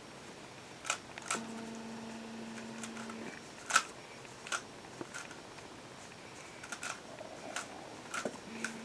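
Plastic Rubik's Cube layers being turned one-handed: scattered sharp clicks at an irregular pace, about a dozen in all. A faint steady hum comes in twice, about a second in and again near the end.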